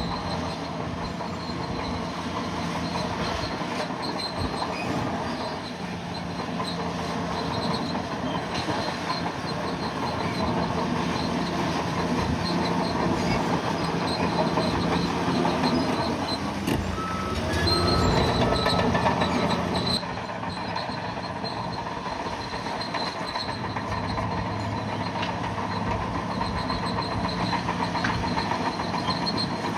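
Bulldozer's diesel engine running under load with the clatter of machinery, louder for a few seconds past the middle and easing off suddenly about two-thirds of the way through.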